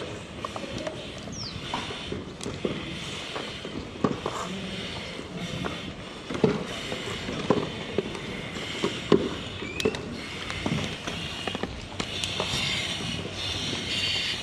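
Scattered clicks, knocks and clatter of firefighting gear being handled as breathing-apparatus masks, straps and helmets go on, with hissing air from the breathing sets that grows stronger in the last few seconds.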